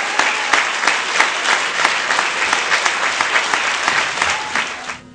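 Large audience applauding, a dense patter of many hands clapping, which cuts off suddenly near the end.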